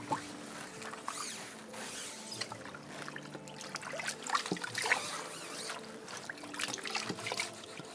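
Water trickling and splashing as ink is rinsed out of a silk screen-printing screen, with small uneven spatters and drips.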